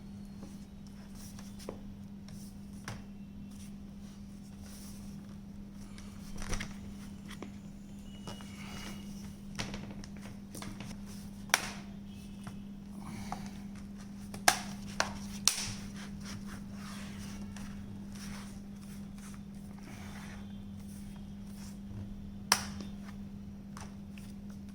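Plastic bottom cover of a laptop being handled and pressed into place, with light scrapes and a few sharp clicks as its clips snap shut, twice close together in the middle and once more near the end. A steady low hum runs underneath.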